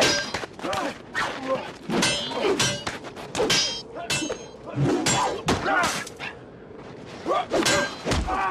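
Swords clashing in a film fight: several sharp metallic clangs with a brief ringing tail, a second or two apart, mixed with thuds, whooshes and grunts of effort.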